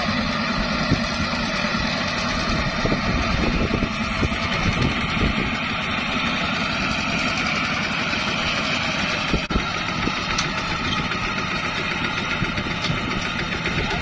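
Single-cylinder diesel engine of a two-wheel walking tractor running steadily as it pulls a loaded trailer through a muddy rice paddy.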